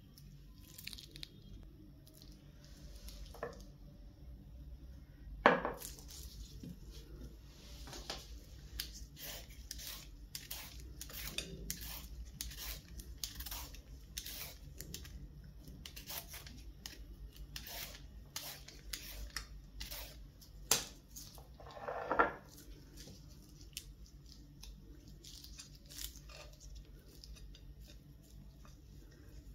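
Vegetable peeler scraping down a raw carrot in quick repeated strokes, about two a second, with a few sharp knocks against a plate, the loudest about five seconds in.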